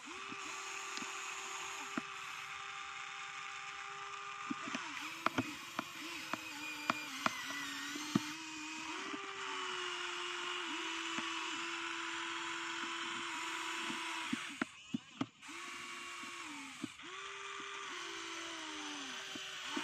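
Electric motors of a radio-controlled model excavator whining as it digs and swings, the pitch stepping up and down as the motors start, stop and change load. A run of sharp clicks and knocks comes in the middle.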